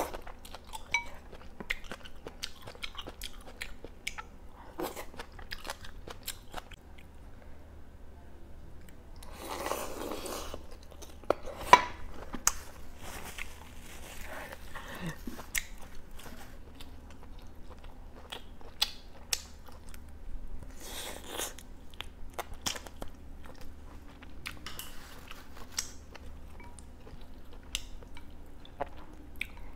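A person eating close to the microphone: chewing, biting and slurping mouthfuls of rice noodles and duck from a hotpot, with scattered small clicks and smacks.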